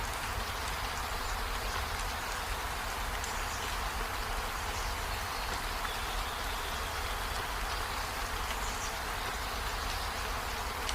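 Steady rain falling on trees and a window: an even hiss with a low rumble underneath.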